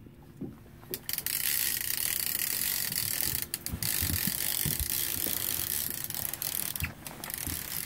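Fishing reel ratcheting in a fast, steady rattle as a hooked walleye is played on a bent trolling rod, with a brief break about three seconds in.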